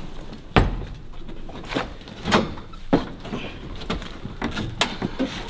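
A series of irregular knocks and thumps, about six in five seconds, the loudest one about half a second in.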